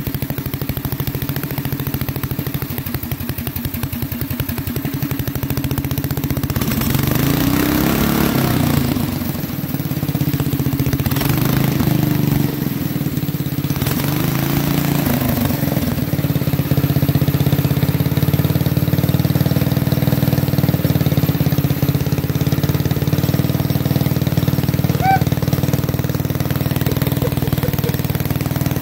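Small go-kart engine running, revved up and back down twice in the first half, then settling into a steady run.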